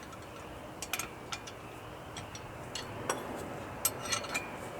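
Socket ratchet with an extension clicking in short, irregular bursts as it hand-tightens the U-joint strap bolts on a driveshaft, with small metallic clinks.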